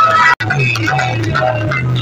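Loud music with a heavy bass drone played through a stack of horn loudspeakers on a roadshow vehicle. The sound cuts out completely for an instant about a third of a second in, then resumes.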